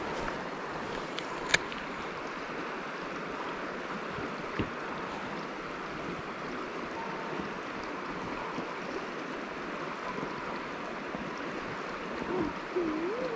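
Steady rush of creek water flowing past, with one sharp click about a second and a half in.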